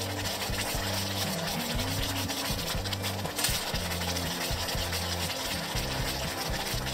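Wooden spoon stirring thick gochujang seasoning in a stainless steel pot, a continuous scraping and rubbing against the pot, with one sharper scrape about three and a half seconds in. The seasoning is being cooked down to drive off its moisture for pickling.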